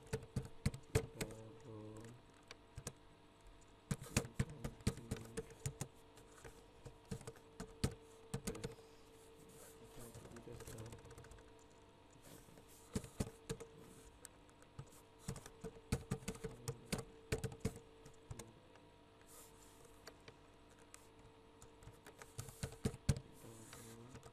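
Typing on a computer keyboard: bursts of rapid keystrokes with short pauses between them, over a faint steady hum.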